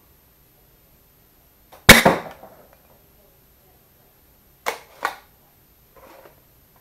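Worker Prophecy Type R spring-powered Nerf blaster, fitted with a brass breech insert, firing a dart with one sharp crack about two seconds in; the AccuStrike darts sit too tight in the brass and leave the barrel slowly. Two quick clacks follow near the five-second mark.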